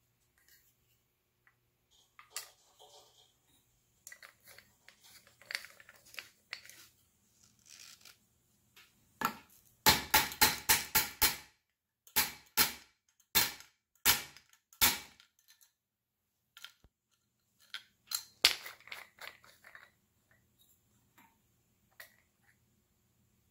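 Hammer-style kinetic bullet puller, green plastic, struck hard against a wooden block to jar the bullet out of a loaded cartridge. A fast run of about six knocks comes around ten seconds in, then four more about a second apart, and one or two more later. Before the strikes there are quieter clicks and rattles of the tool being handled and its cap screwed on.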